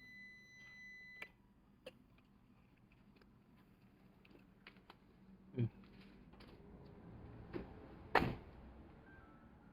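A faint high whine cuts off with a click about a second in. Scattered faint clicks follow, with two louder knocks a little past halfway and near the end.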